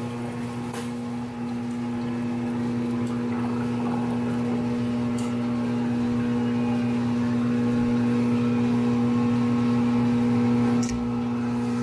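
Crankshaft grinder running, its abrasive wheel grinding a crankpin journal on a Triumph 650 unit crankshaft as the crank turns in the chucks. A steady machine hum under the even noise of the wheel on the steel, slowly growing a little louder.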